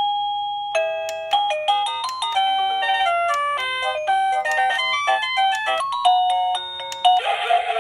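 Wireless doorbell receiver playing one of its selectable chime tunes: a long electronic melody of quick beeping notes. Near the end it switches to a harsher, buzzier tone.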